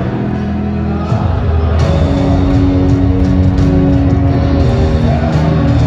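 Live rock band playing a slow power ballad led by piano, heard over a stadium sound system, with long sustained notes. The band swells fuller and a little louder about two seconds in.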